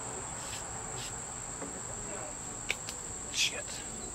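Crickets chirring in a steady, unbroken high-pitched drone, with a few brief clicks and knocks over it, the loudest about three and a half seconds in.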